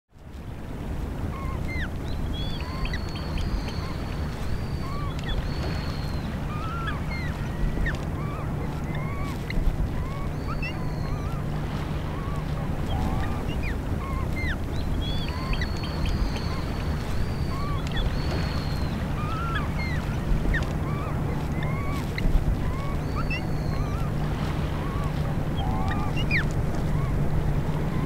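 Many water birds calling in the background, a steady stream of short overlapping chirps and squawks, over a steady low hum and the wash of water on the flats.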